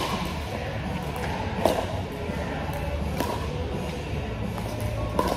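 Pickleball rally: paddles hitting a plastic pickleball back and forth, four sharp pops about a second and a half to two seconds apart, with music playing in the background.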